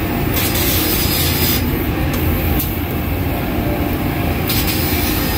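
2,000-watt fiber laser cutter cutting 3/8-inch steel plate: a loud, steady machine rumble, with the hissing rush of the cutting head switching on shortly after the start, stopping after about a second, and coming back for about two seconds.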